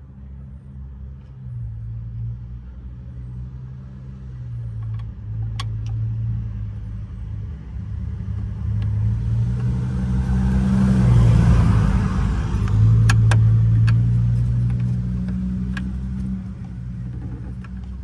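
A motor vehicle passing by: its engine hum and tyre noise grow louder, peak about two-thirds of the way through, then fade. A few sharp metallic clicks sound over it.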